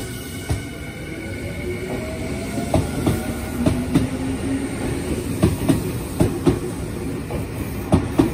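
Commuter train pulling out on the adjacent track: its motor whine rises as it gathers speed, then its wheels clack over the rail joints, the knocks coming in close pairs from about three seconds in.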